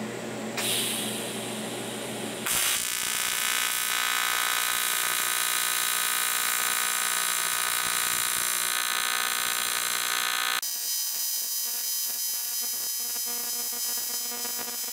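AC TIG welding arc on aluminum, a steady electric buzz with a dense, even whine, setting in about two and a half seconds in. Its tone changes abruptly about ten and a half seconds in and carries on to the end.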